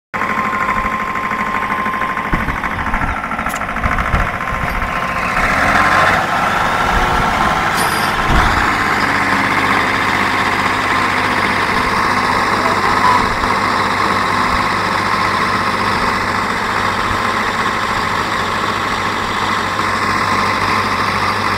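Tractor engine running steadily, with a few low thuds in the first several seconds.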